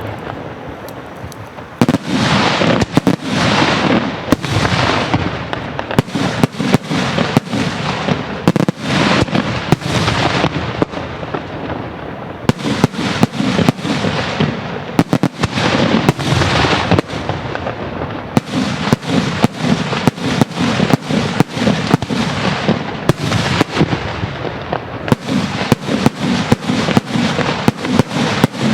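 Daytime fireworks barrage: a rapid, near-continuous string of loud bangs and crackling reports. It is somewhat lighter for the first couple of seconds, then it thickens.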